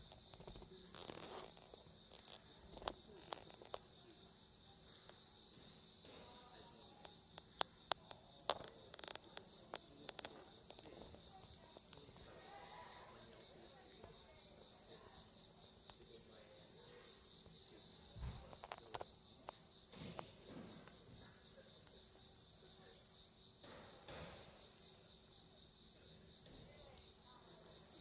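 Insects chirring in one unbroken high, steady trill. Scattered sharp clicks come over it, mostly in the first ten seconds.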